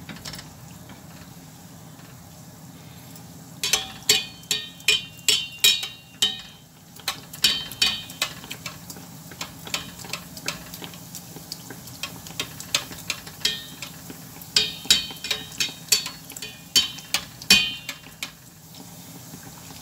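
Metal spoon clinking repeatedly against a stainless steel saucepan as hot oil is spooned over dough rounds deep-frying in it, over a steady low sizzle of the oil. The clinks begin about four seconds in and come in quick runs of several strikes, with short pauses between.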